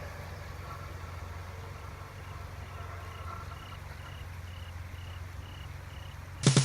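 Quiet outdoor ambience: a steady low hum with faint high chirps about twice a second. Piano music cuts in suddenly at the very end.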